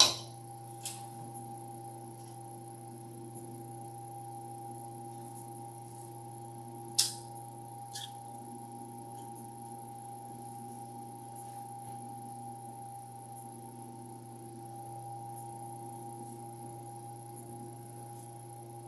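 A steady electrical hum of several level tones, with a few light clicks or knocks: one at the start, one just under a second in, a sharper one about seven seconds in and a faint one a second later.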